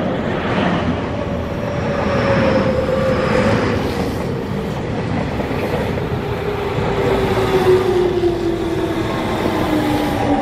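Electric commuter train running past close by, wheels rumbling on the rails. A motor whine falls steadily in pitch throughout, as the train slows.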